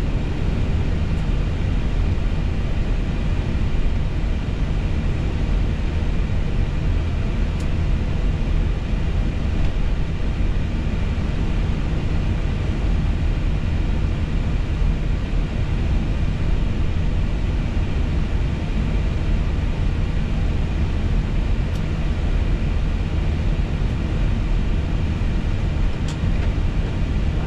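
Steady cabin noise on an Airbus A320 flight deck: a constant low rumble with a few faint steady tones above it, unchanging throughout.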